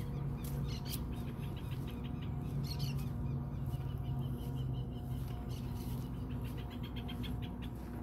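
Birds chirping in short repeated calls, over a steady low hum.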